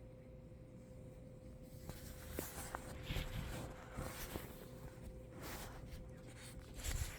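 Scratchy rubbing and rustling in irregular bursts starting about two seconds in, loudest just before the end: a nose being rubbed hard against something.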